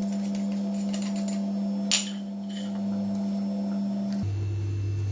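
A steady, pure humming tone that drops to a lower pitch about four seconds in, with a metal spoon knocking once against the mixing bowl about two seconds in and faint scraping of the spoon through the semolina.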